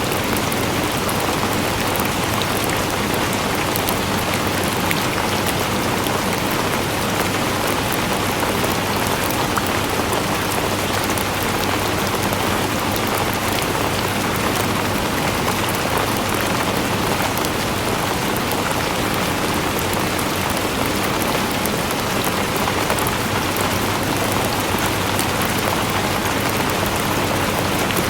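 Steady rain falling on a surface, a dense even hiss full of fine drop ticks.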